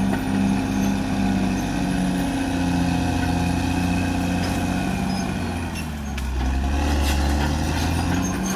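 Caterpillar D6R XL bulldozer's diesel engine running steadily under work. Its note dips about six seconds in, then picks up again.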